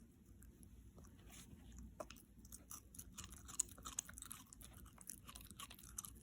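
Shiba Inu chewing something crunchy: a quick run of crisp crunches and bites, sparse at first and coming thick and fast from about two seconds in.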